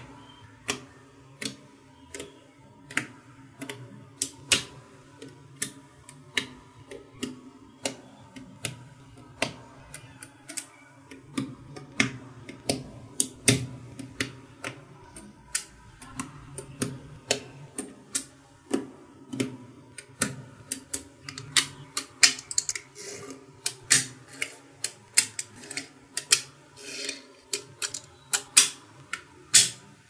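Small blocks of magnetic balls snapping onto each other and onto a base of magnetic balls: sharp, irregular clicks a few times a second, coming quicker in the second half.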